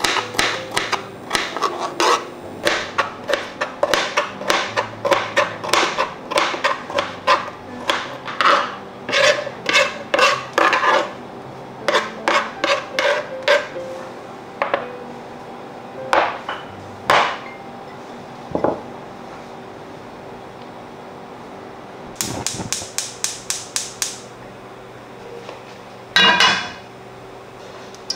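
Kitchen knife chopping potato on a cutting board: quick, steady chops about two or three a second for roughly the first half, then a few scattered knocks. Near the end comes a short run of rapid sharp clicks, then a brief clatter.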